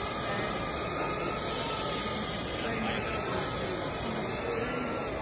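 Palm-sized quadcopter drone hovering: its four enclosed propellers make a steady rushing hiss with a faint, steady whine.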